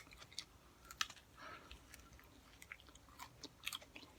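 Faint chewing and wet mouth clicks from a person eating a hot pepper, a scatter of small irregular clicks.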